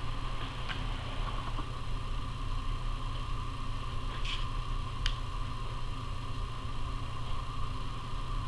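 Steady background hum, with a few faint light clicks.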